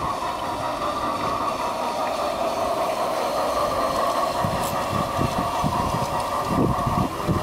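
Battery-powered G-gauge model train running along the garden track, its electric motor and gears giving a steady whine. From about halfway through, gusts of wind buffet the microphone.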